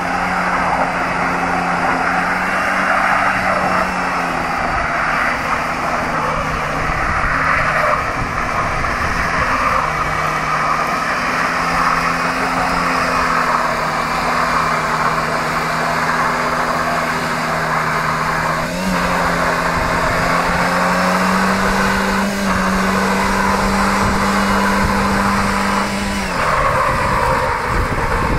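Skoda 1.3-litre engine held at high, steady revs during a burnout, the front tyres spinning on the spot and squealing with a rough hiss. The revs rise a little past the middle and drop off near the end.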